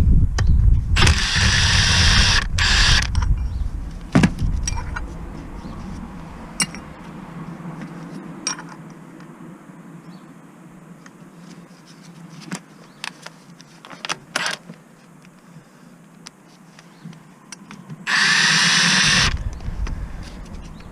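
Cordless power tool run in two short bursts, one shortly after the start and one near the end, with scattered sharp metallic clicks and knocks of tool handling in between.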